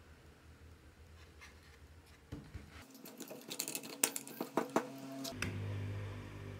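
Light knocks, clicks and scrapes of a thin wooden strip being handled and set into the jaws of a bench vise, starting about two seconds in and coming thickest around the middle.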